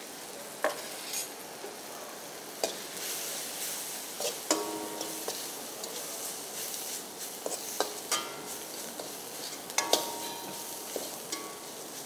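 Onion-tomato masala with chilli, coriander and garam masala sizzling in a wok while a spatula stirs and scrapes it, with sharp clinks of the spatula against the pan throughout. Two of the strikes, about halfway and near the end, leave the pan ringing briefly.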